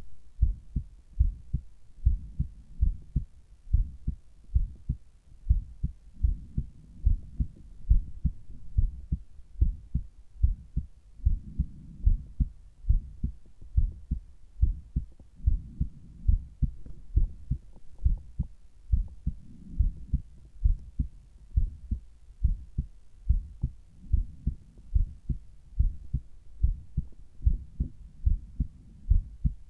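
Human heartbeat heard through a Littmann Cardiology IV stethoscope on the left side of the chest: steady, regular low beats, with a soft rushing noise that swells every few seconds.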